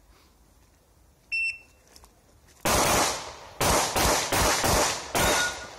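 A shot timer gives its start signal, one short high-pitched beep. About a second and a half later a handgun fires a string of about seven shots, in quick pairs and singles over roughly two and a half seconds.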